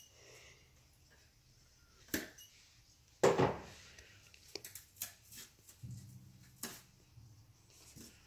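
Side snips biting into thin board: a handful of sharp snaps, the loudest about three seconds in. A low hum starts about six seconds in.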